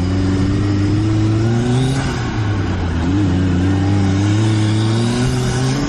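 Turbocharged side-by-side UTV engine under hard acceleration, heard from the driver's seat with the engine right behind it. The revs climb, dip briefly about halfway through, then climb again.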